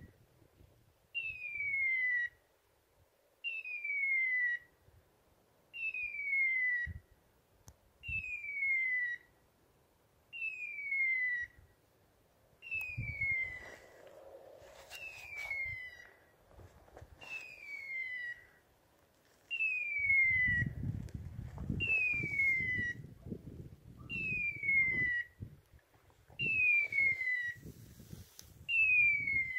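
Electronic beeper collar on a pointer sounding its point-mode signal: an identical falling whistle-like tone of about a second, repeated every two seconds or so, meaning the dog is holding point. Footsteps brushing through rough grass and heather join in the second half.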